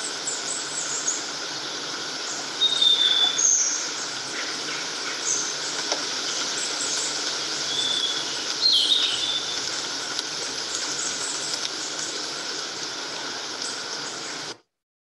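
Outdoor ambience: a steady rushing noise with scattered short, high bird chirps, the clearest about three seconds in and again around eight to nine seconds. It cuts off suddenly just before the end.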